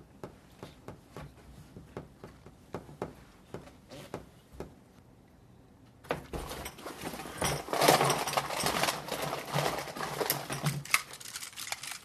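Faint scattered ticks, then from about halfway a busier run of rustling, clicking and clattering as objects are handled on a tabletop. It is loudest a couple of seconds after it starts.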